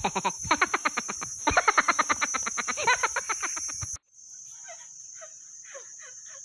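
Forest ambience: a steady high-pitched insect drone, with a rapid train of pitched pulses, about eight a second, for the first four seconds. After an abrupt cut at about four seconds, fainter scattered short chirps go on under the drone.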